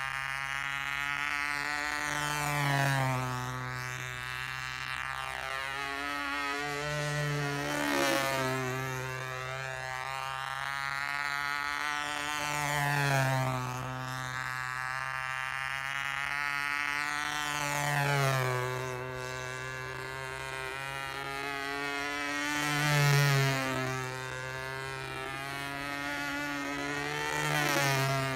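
Radio-controlled model airplane's motor and propeller buzzing as it flies laps, growing louder and then dropping in pitch each time it passes close, about every five seconds.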